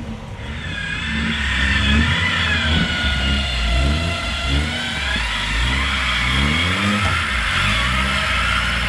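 Off-road 4x4's engine revving up and down about once a second, as if working through rough ground, with a higher whine rising and falling alongside it.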